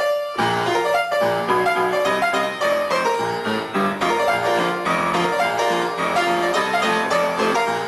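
Background music played on a keyboard instrument, a continuous run of quick, piano-like notes.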